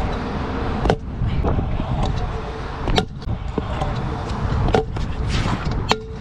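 Stunt scooter rolling fast on concrete, its wheels giving a steady rumble, broken by sharp knocks of the wheels and deck hitting the ground about one, three, nearly five and six seconds in; the last knock comes as the rider crashes beside the scooter.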